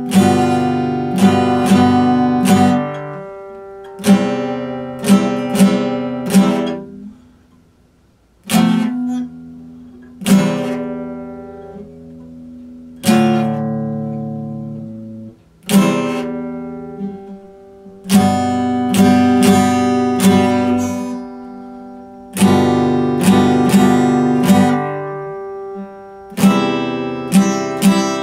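Epiphone acoustic guitar played solo at a slow, free tempo: chords struck and left to ring out for a few seconds at a time, with short runs of picked notes between them. The sound dies away almost to silence once, about eight seconds in, before the next chord.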